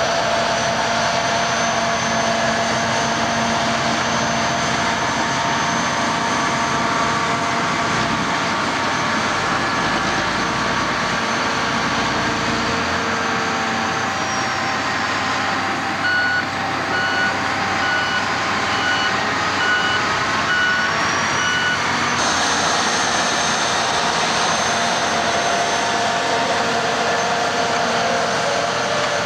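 Heavy diesel engines of off-road AEC Mercury dump trucks and a steel-wheeled compactor running steadily on an earthworks site. About halfway through, a reversing alarm beeps evenly, roughly once or twice a second, for about five seconds.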